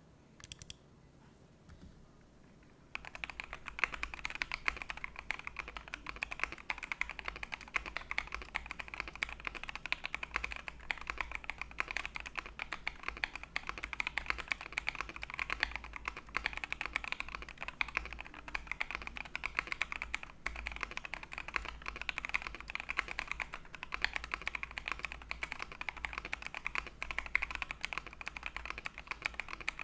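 Typing on a KBD75 V3.1 mechanical keyboard fitted with Tangerine linear switches: after a couple of stray key clicks, a fast, continuous clatter of keystrokes starts about three seconds in.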